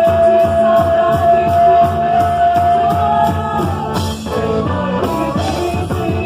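Festa junina quadrilha music with a steady beat; one long note is held for about three and a half seconds, then the melody moves on.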